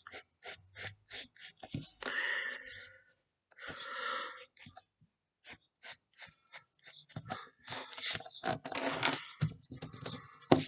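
Drawing strokes scratching on paper: a run of short scrapes and longer rubbing strokes, busiest near the end.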